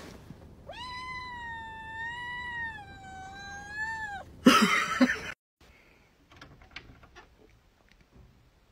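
A distressed cat shut in a pet-carrier backpack gives one long yowl of about three seconds that wavers and sags slightly in pitch. A short, loud noisy burst follows it, and then come a few faint clicks.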